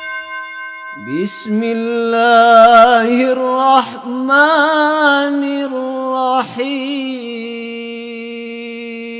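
A lone male voice chanting Quranic recitation in Arabic, long held notes with ornamented wavering, ending on a long steady note. A ringing chime tone fades out in the first second.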